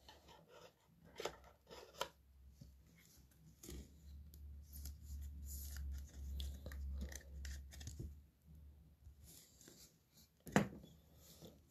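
Faint handling of glossy foil trading cards: a few light clicks and snaps, then several seconds of cards sliding and rubbing against each other with a low rumble as a stack is shuffled through by hand.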